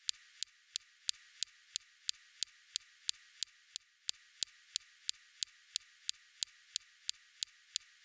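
Perseverance rover's SuperCam laser firing shot after shot at a rock on Mars, picked up by SuperCam's microphone. It is a steady train of sharp clicks, about three a second, some louder than others, over a faint hiss.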